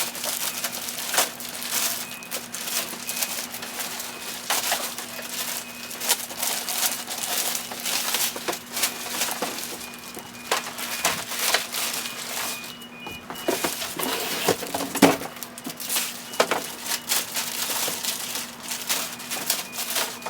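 Cardboard box and packing material being handled and torn open, with irregular crunching and crinkling sounds over a faint steady hum.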